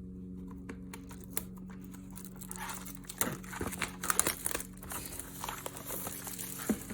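Packaging of a fan-club kit being torn open and crinkled by hand: rustling, crackling tears and small clicks that start a couple of seconds in and keep going.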